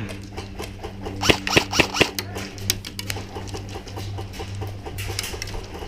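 Airsoft guns firing in a firefight: scattered sharp pops and cracks, some in quick clusters, over a steady low hum.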